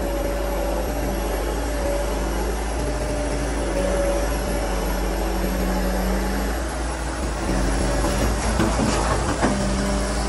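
Kobelko SK200 hydraulic excavator's diesel engine running steadily under working load, with a constant hydraulic whine and engine note swelling and easing as the boom lifts and swings a bucket of wet earth. About nine seconds in there is a brief clatter as the load is dumped.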